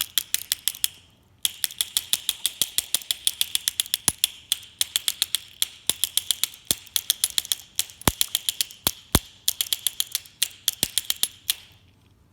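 A deadbolt lock cylinder being tapped rapidly and repeatedly against the ground in a rapid, even series of sharp, ringing metal taps, to vibrate a broken key out of the keyway. The tapping pauses briefly about a second in and stops shortly before the end.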